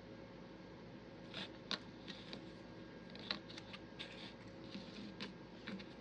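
Faint, scattered light clicks and rustles of small wooden beads being handled and threaded onto twine.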